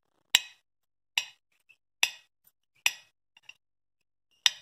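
A kitchen knife cutting a peeled banana into thick chunks on a ceramic plate, the blade clinking sharply against the plate with each cut: four clinks less than a second apart, then a fifth near the end.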